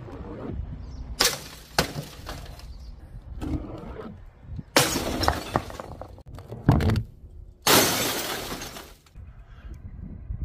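A heavy ball rolls down a wooden ramp with a low rumble and a few knocks, then smashes through the glass screen of an old CRT television. Glass breaks and shatters in two loud crashes, about five seconds in and again near eight seconds, the second one a longer spray of noise.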